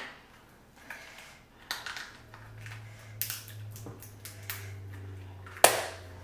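Boiled lobster shell being cracked and pulled apart by hand: a series of short, sharp cracks and snaps, the loudest a little over five and a half seconds in.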